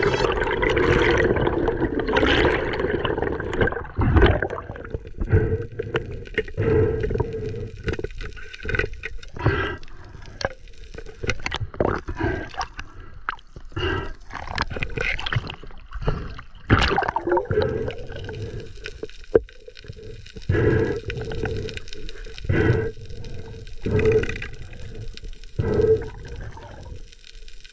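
Muffled underwater sound from a diver's camera: water gurgling and sloshing in uneven swells, with scattered clicks, knocks and scrapes against the housing.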